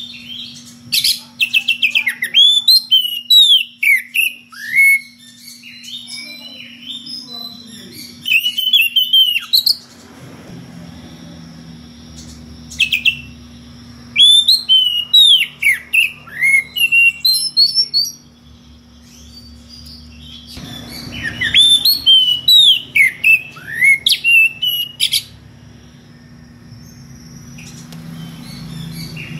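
Oriental magpie-robin (kacer) in full song, in four loud bouts of rapid, varied whistles, chirps and clicking notes with sharp up-and-down slides, separated by short pauses. It is a male's song for calling out a rival.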